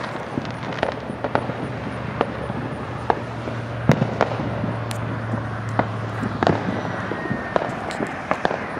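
Distant fireworks going off from several directions: scattered, irregular pops and bangs, the loudest about four seconds in and another between six and seven seconds in. A steady low hum runs underneath for most of it.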